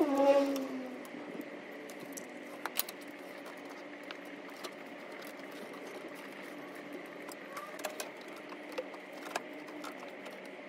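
Light, scattered metallic clicks and clinks of hand tools working on the alternator mounting bolts and belt of a Chevy Silverado's 5.3 V8, engine off, over a faint steady background hum. A brief, louder pitch-bending sound comes right at the start.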